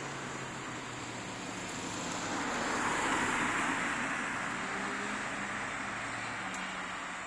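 A vehicle passing by: a rushing noise swells to its loudest about three seconds in and then fades, over a low, steady engine hum.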